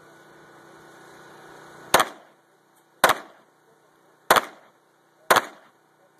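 Four pistol shots, spaced about a second apart, each followed by a short echo.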